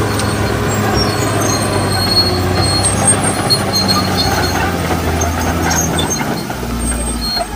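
Crawler bulldozer running under load as it pushes soil and brush with its blade: a steady low diesel engine sound with high squealing from the steel tracks coming and going over it.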